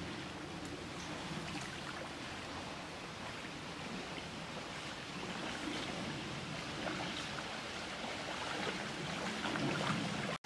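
Small waves lapping and splashing along a lakeshore under a steady wind, a continuous watery wash with faint scattered splashes.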